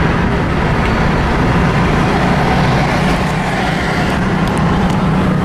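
A car's engine hum and tyre and road noise, heard from inside the cabin while it drives along at a steady pace. A few light clicks come near the end.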